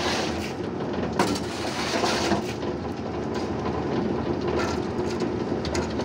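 Diesel-powered automatic concrete mixer running with a steady rumble and rattling clatter. Wet concrete slides off a metal chute into a steel wheelbarrow near the start, with scattered knocks.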